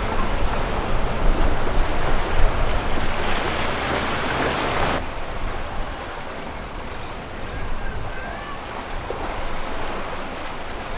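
Sea waves washing against a seawall, with wind rumbling on the microphone; about five seconds in, the sound drops suddenly to quieter surf.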